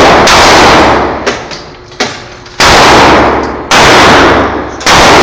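Gunshots at a shooting range: four loud shots roughly a second apart and one lighter crack. Each overloads the recording and rings out with a long echo.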